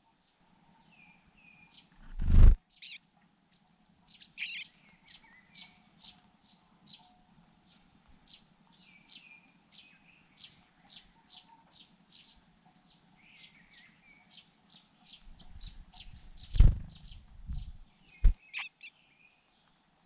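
Cuckoo chick begging while being fed: a long run of short, high chirps, about two a second, mixed with lower, falling call notes. Loud thumps come about two seconds in and twice near the end.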